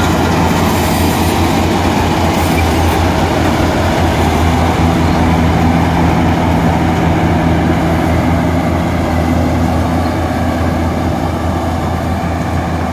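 Yanmar AW70GV combine harvester cutting and threshing rice close by: a loud, steady drone of its diesel engine and threshing machinery, easing slightly near the end as it moves off.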